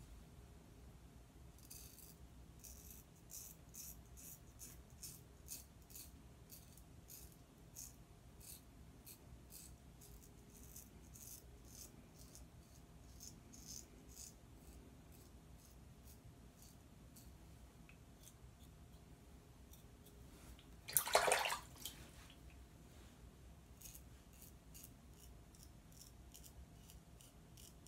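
Merkur Progress double-edge safety razor with a Gillette 7 O'Clock blade scraping through lathered stubble on an against-the-grain pass: faint, short, scratchy strokes, a few a second, with a pause partway. About three-quarters of the way through comes a brief, louder rush of noise.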